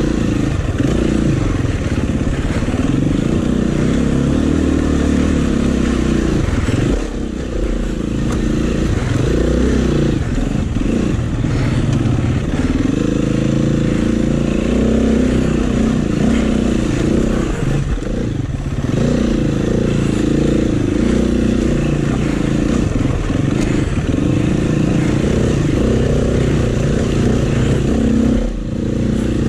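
Dirt bike engine revving up and down with the throttle as it crawls over rocks and roots. The engine briefly drops off about seven seconds in and again near the end.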